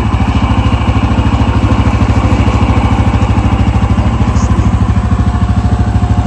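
Four-wheeler ATV engine running steadily at low revs, with an even low throb.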